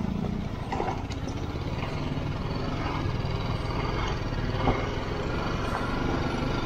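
Motorcycle engine running steadily as the bike rides over a rough dirt track, with a low pulsing from the engine under steady road and wind noise.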